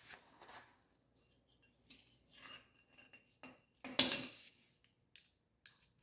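Metal brake caliper parts (pads, slider pins) clinking and rattling as they are handled and pulled apart, with a louder metallic clank about four seconds in.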